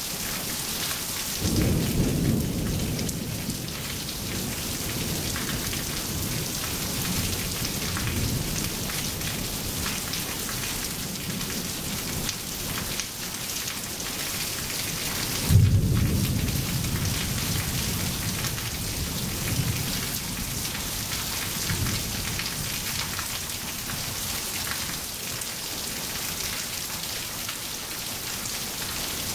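Steady rain falling on wet pavement, with thunder rumbling twice: once about a second and a half in, and a louder roll that starts suddenly about halfway through and dies away over several seconds.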